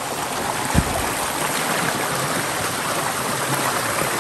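Steady rush of flowing water from a mountain stream, with one brief low thump a little under a second in.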